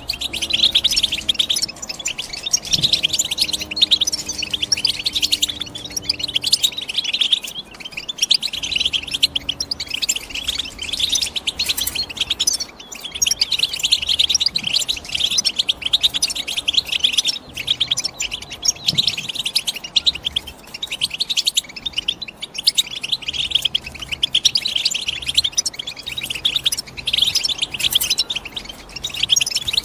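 European goldfinch singing: a fast, almost unbroken run of twittering chirps and trills, with a few brief pauses.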